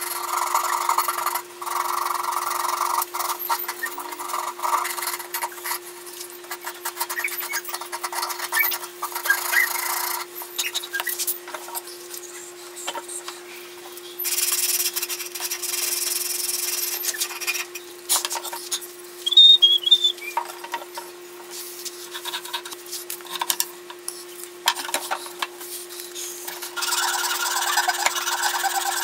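Sandpaper rubbed by hand over the wooden handle of an old Disston back saw, in spells of back-and-forth scratching strokes with pauses between. A brief louder clatter comes a little before two-thirds of the way in, over a steady faint hum.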